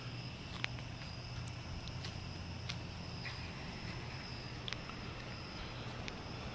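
Crickets chirping in a thin, steady high trill over a low steady hum, with a few sharp clicks scattered through.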